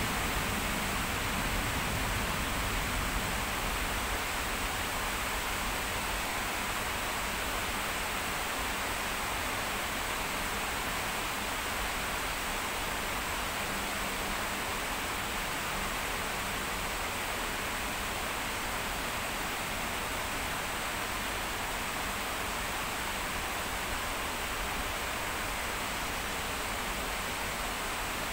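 Heavy rain falling: a steady, even hiss of a downpour.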